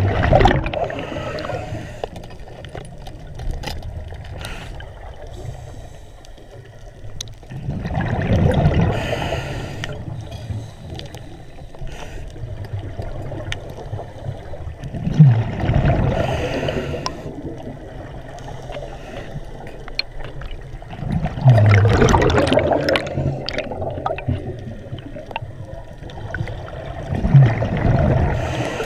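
Scuba diver breathing through a regulator, heard underwater: a bubbly burst of exhaled air about every six to seven seconds, five in all, with quieter water noise between breaths.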